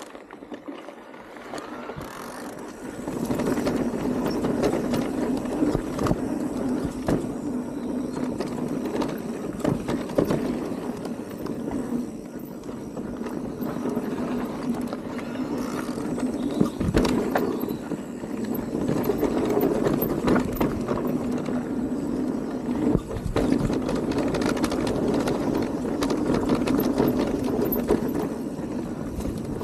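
Radon DEFT electric mountain bike riding a dirt trail: steady rolling noise with frequent short knocks and rattles as it runs over the bumps, getting louder about three seconds in as it picks up speed.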